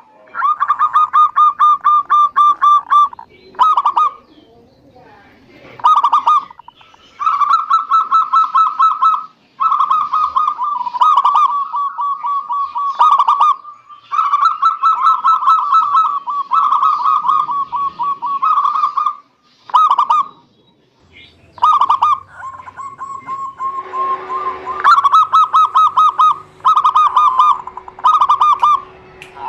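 Zebra doves (perkutut) cooing: loud phrases of fast, evenly pulsed notes at a fairly steady pitch, repeated one after another with short gaps between them.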